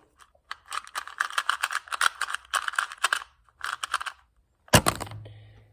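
2x2 speed cube being turned very fast by hand: a quick run of plastic clicks and clacks for about three and a half seconds, then one sharp knock near the end as the solve stops.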